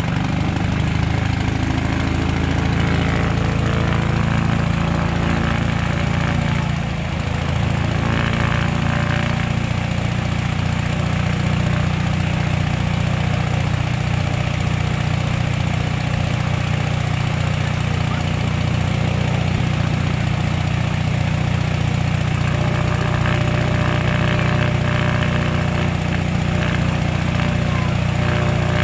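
Piston aero engines of a replica SE5a and an Eastchurch Kitten biplane running steadily on the ground during an engine run-up, propellers turning.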